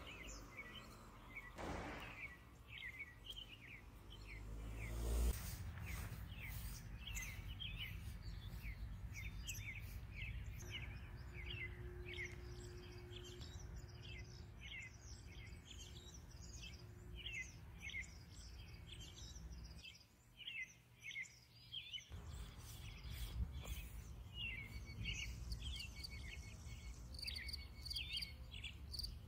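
Small songbirds chirping and calling, many short chirps several a second, over a steady low outdoor rumble.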